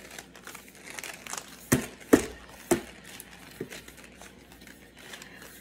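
Plastic packaging crinkling as it is handled, with three sharp clicks between about one and three seconds in.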